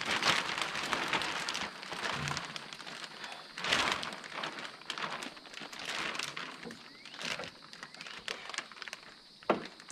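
Thin plastic vapor-barrier sheeting crinkling and rustling as it is unrolled and pressed up against wall framing, in uneven swells with many small crackles.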